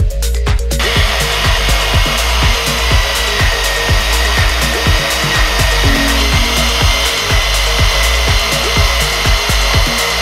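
Portable band saw starting up about a second in and running steadily, its blade cutting through metal with a steady high whine over a rasping noise.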